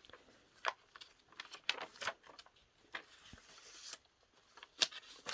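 Paper rustling with scattered light clicks and taps as the pages and cards of a handmade junk journal are handled and turned.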